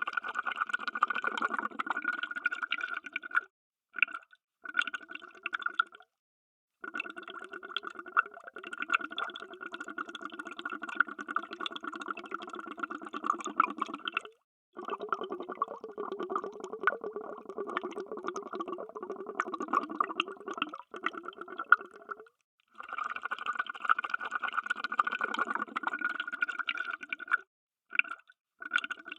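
Underwater bubbles streaming and gurgling in runs of several seconds, broken by short, abrupt gaps of silence.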